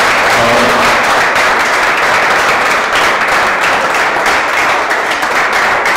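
Audience applauding: many hands clapping in a loud, steady patter.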